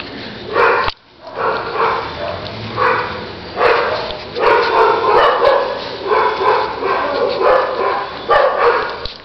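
Small puppy yapping and barking over and over in play, a string of short yaps with a brief break about a second in.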